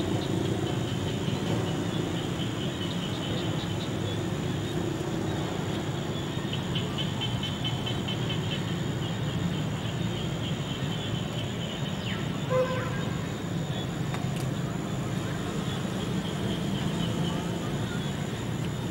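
Steady outdoor background: a low continuous rumble with a rapid high-pitched trill that comes and goes, and a brief chirp about twelve seconds in.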